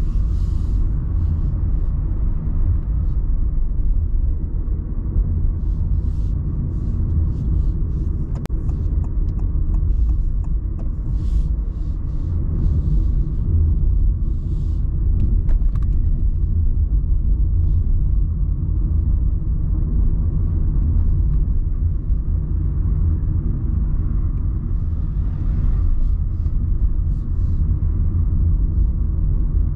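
Steady low rumble of a car being driven along a road, heard from inside the cabin: tyre and engine noise, with faint scattered clicks.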